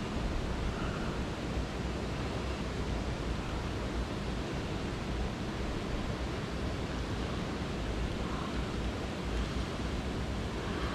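Small high-mountain stream running steadily, a constant even rush of water.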